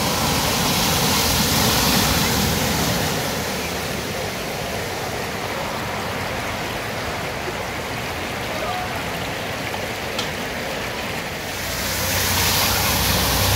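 Land Rover Discovery SUV ploughing through a flooded ford, its wheels throwing up spray, then the steady rush of floodwater pouring across the road. The rush is loudest in the first few seconds and swells again near the end.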